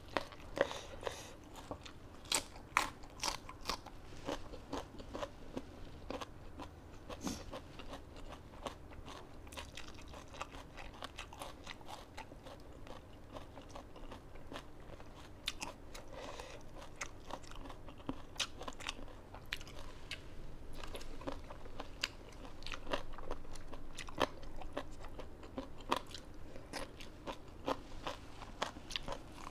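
A person chewing and biting crisp food, a spicy pounded salad with raw vegetables, with many short sharp crunches scattered throughout.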